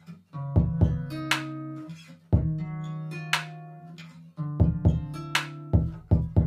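Background music: plucked string notes over a deep bass, with repeated heavy low hits keeping a beat.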